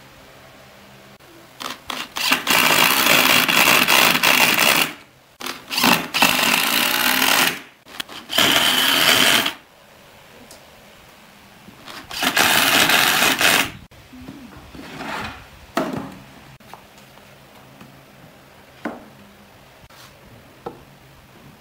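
Power drill driving screws into pine boards in four runs of about one and a half to three seconds each, the motor whirring under load, followed by a few light clicks and knocks.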